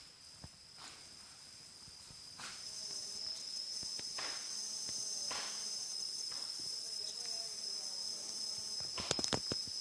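Insects, likely crickets, chirring in a steady high-pitched trill that grows louder a couple of seconds in, with a few scattered clicks and a quick cluster of sharp clicks near the end.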